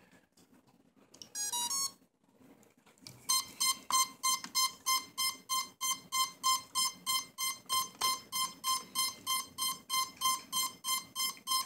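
Cheerson CX-20 quadcopter beeping as it powers up on battery connection: a short rising tune of beeps, then after a pause, a steady quick beep repeating about three times a second.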